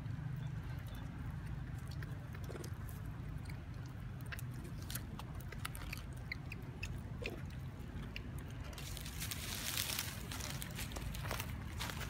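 Macaques shifting about on dry leaf litter: scattered small clicks and crackles over a steady low rumble, with louder rustling and crackling of dry leaves from about nine seconds in.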